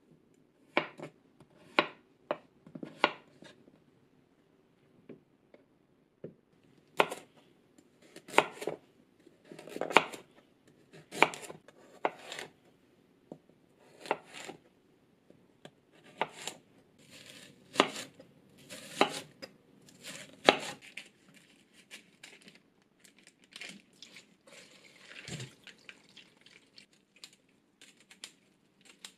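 Kitchen knife cutting raw potato and carrot on a cutting board: separate sharp knocks of the blade meeting the board, irregular and about a second apart. Near the end the knocks stop, giving way to softer handling noise and one low thud.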